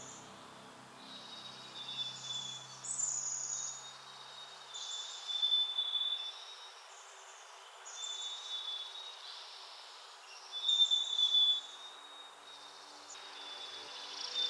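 A songbird singing short, high phrases over and over, a new phrase every second or two, some with a quick trill. Soft background music fades out about five seconds in.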